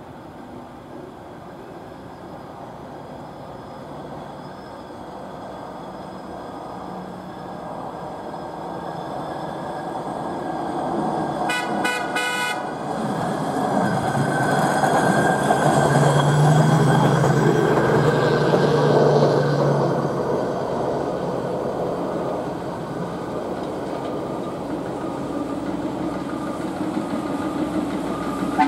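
Hy-rail pickup truck running on the rails, growing louder as it approaches. A little under halfway in it gives a rapid string of short horn toots, then passes at its loudest with a low engine drone before the sound eases off, while a rail-mounted maintenance crane comes up behind it.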